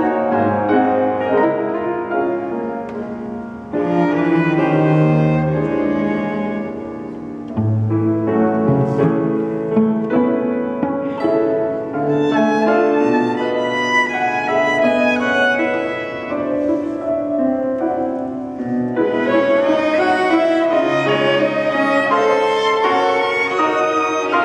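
Piano trio of violin, cello and grand piano playing a chamber piece, the violin's bowed line on top of cello and piano. The music drops back briefly twice in the first third and swells into a fuller, louder passage about three quarters of the way through.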